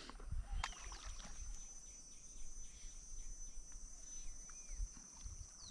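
Insects trilling in a steady high-pitched chorus that comes in about half a second in, faint, with a few short chirps over it.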